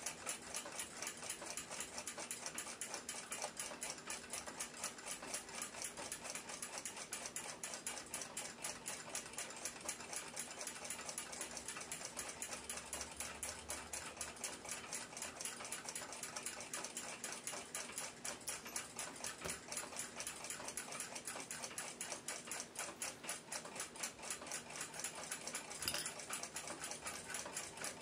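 Russian submarine clock movement ticking rapidly and evenly, with one sharper click near the end.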